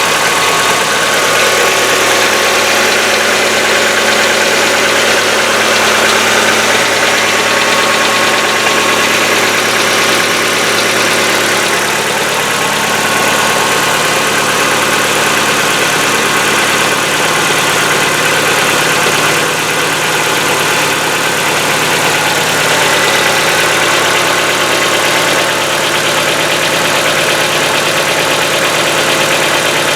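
Hyundai Getz engine idling just after a cold start, with the tapping of its hydraulic lifters (lash adjusters), which are not yet pumped up with oil. The owner puts the knock down to heavily clogged lifters.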